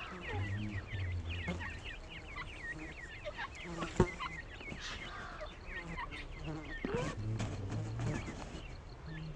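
Grey francolin chicks peeping constantly: many short, high, falling cheeps in quick succession. There is a single sharp click about four seconds in.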